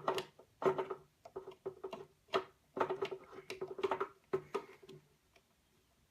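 Quick irregular metallic clicks and scrapes of a screwdriver and small hard-drive mounting screws being worked, with a light ringing in them; they stop about five seconds in.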